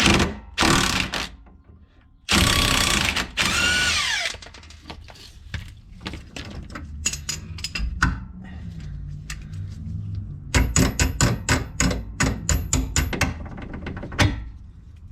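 Impact gun run in short bursts on the rear sway bar's lower-link fastener; one longer burst drops in pitch as it winds down. Several seconds later comes a quick run of sharp metallic clicks and knocks, about four a second.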